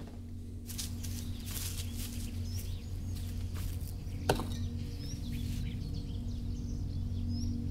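Footsteps swishing through grass, then a ceramic plate set down on a stone with one sharp clink about four seconds in. Small bird chirps over a low steady hum.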